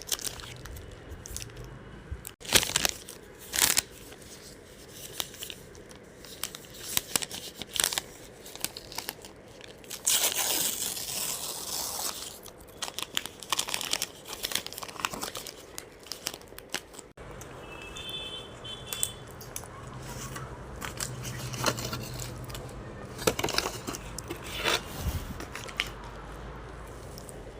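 A Dairy Milk chocolate wrapper being torn open and crinkled by hand: irregular crackling and tearing, with a longer rustling tear about ten seconds in.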